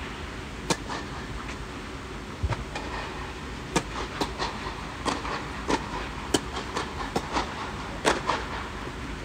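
Tennis ball struck by racquets and bouncing on a clay court: a serve about a second in, then a rally of sharp pops and bounces several times a second, over steady low background noise.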